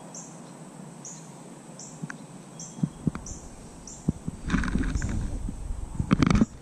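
A short high chirp repeats about every three-quarters of a second. From about three seconds in come low rumbling and a few sharp knocks, with the loudest, rustling burst just before the end.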